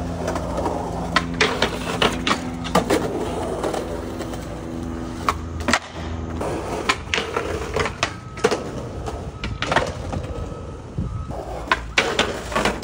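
Skateboard wheels rolling on concrete pavement under sharp pops and cracks of the board: tail snaps for flip tricks and landings, with the board clattering against the concrete. A quick run of hits comes near the end, as the skater works a concrete step ledge.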